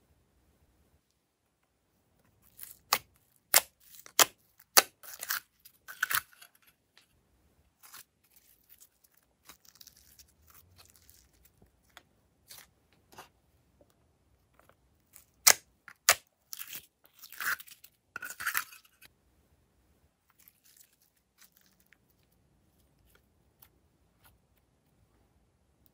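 Glossy slime worked by hand, stretched, folded and pressed flat, giving sharp sticky clicks and crackles in bunches with quiet gaps between.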